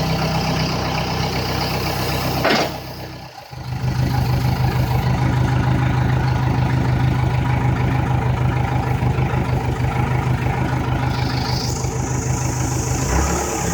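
Backhoe loader's diesel engine idling steadily, with a brief dip in level about three seconds in.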